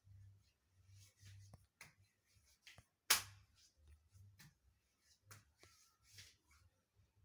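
Faint room noise with scattered soft clicks and rustles over a low hum, and one sharper click about three seconds in.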